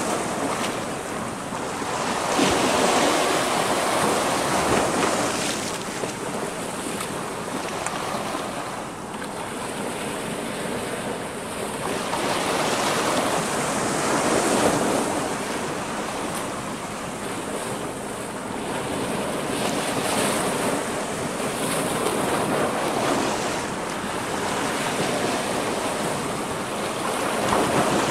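Sea waves washing and breaking against shoreline rocks, a steady rush of surf that swells and eases every few seconds.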